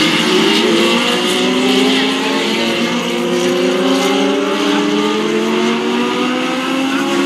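Several Legends race cars' Yamaha motorcycle engines running together at speed on track. Their overlapping notes at different pitches slowly rise as the cars accelerate.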